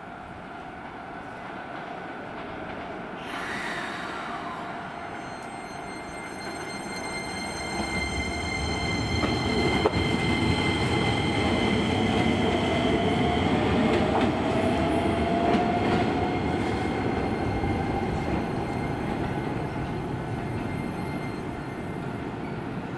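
Keisei Main Line electric train running on the station tracks: the rumble of wheels on rail builds to its loudest about halfway through and then fades. A high whine from the traction motors rises in pitch as the train moves.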